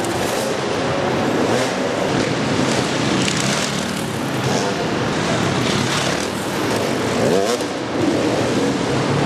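Off-road motorcycle engines running and revving inside a large hall, with one engine climbing and falling in pitch near the end.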